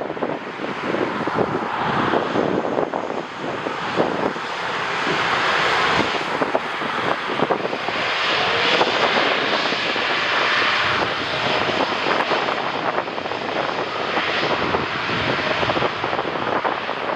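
Jet airliner's engines passing close by, the noise swelling to its loudest about halfway through, with gusty wind buffeting the microphone throughout.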